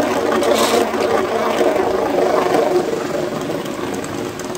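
Two Beyblade Burst spinning tops whirring and rattling as they spin on a plastic stadium floor, a steady grinding whir that eases off a little toward the end.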